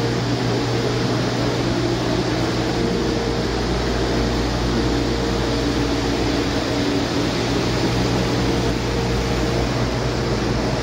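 Cummins ISB 6.7L inline-six turbodiesel running steadily on a test stand, an even, unchanging engine note with no revving. The engine runs well, with no fault heard.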